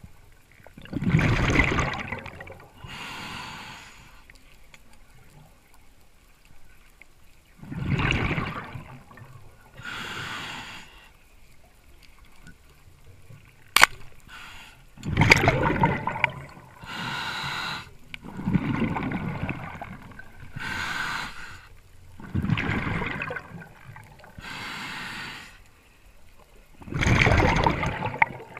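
A diver breathing through a scuba regulator, six breaths a few seconds apart, each a burst of bubbling followed by a hiss. One sharp click about 14 seconds in is the speargun firing.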